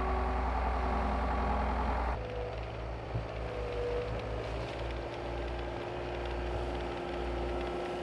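Compact track loader's diesel engine running steadily as it plows snow with its bucket; the sound changes abruptly about two seconds in.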